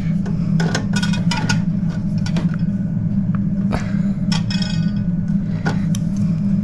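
Scattered metal clicks and clinks of a hand tool working at a tight fitting on a clock, a few of them ringing briefly, over a steady low hum.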